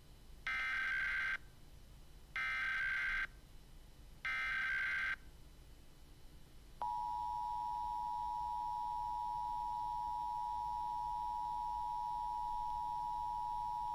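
Emergency Alert System tones: three short bursts of SAME digital header data, each just under a second long and about a second apart, then about seven seconds in the steady two-tone EAS attention signal begins.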